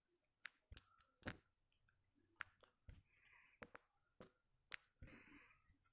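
Near silence broken by faint, irregularly spaced clicks, about a dozen of them, with two brief soft rustles, one around three seconds in and one around five seconds in.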